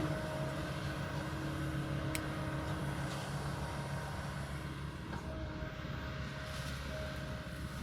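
Kobelco hydraulic excavator's diesel engine running steadily at work, a constant low hum.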